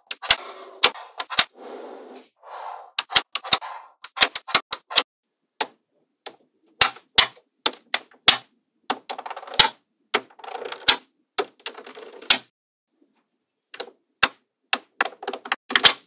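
Small magnetic balls clicking sharply as they snap together, at an irregular pace, with stretches of softer rattling between the clicks and a brief lull near the end.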